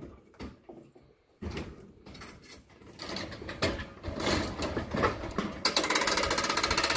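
Steel cattle crush being opened to let a weighed animal out: metal gates and latches clank and knock, getting louder from about a second and a half in and ending in a fast, continuous metallic rattle.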